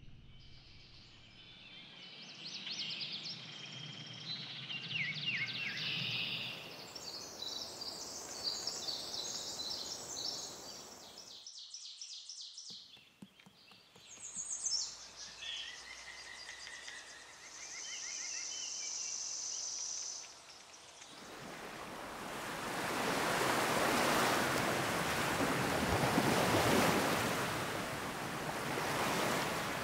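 Nature ambience: small birds chirping and twittering, with a brief break partway through. About two-thirds of the way in, this gives way to a steady, swelling wash of sea surf on a shore.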